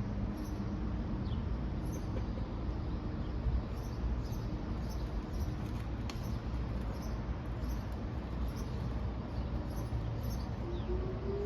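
Distant outdoor warning sirens sounding the alert test, faint under steady outdoor noise, with one siren's tone rising steadily in pitch near the end.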